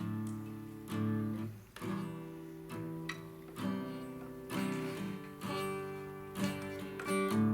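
Acoustic guitar strumming chords, one strum about every second, as an instrumental bridge between worship songs.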